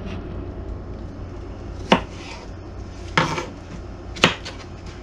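Kitchen knife slicing through a cucumber and knocking down onto a cutting board: three sharp knocks a little over a second apart, over a low steady hum.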